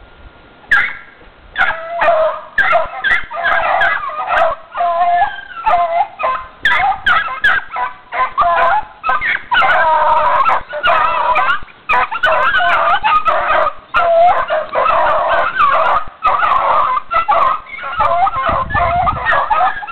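Several dogs yelping and howling together, a dense run of high, bending calls that starts about a second in.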